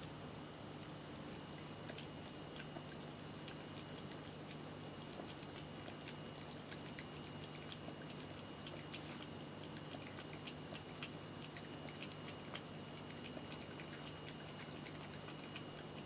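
An American shorthair cat lapping water from a Pure Crystal cat drinking fountain: many soft, quick tongue clicks, irregularly spaced, over the fountain's faint steady running.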